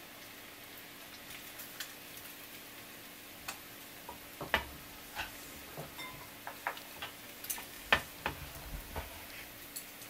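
Conger eel (anago) tempura deep-frying in hot oil: a low steady sizzle with irregular sharp pops and crackles, a few of them louder in the second half.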